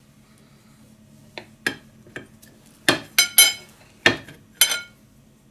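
Steel knife slicing a firm chocolate agar jelly, its blade knocking and clinking against the china plate beneath. About eight sharp clinks, several ringing briefly, most of them between about three and five seconds in.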